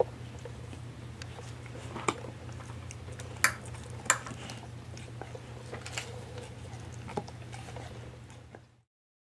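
A husky gnawing and crunching on a Purina Busy Chewnola chew treat, with scattered sharp cracks as it bites down, the loudest a few seconds in, over a low steady hum. The sound cuts out just before the end.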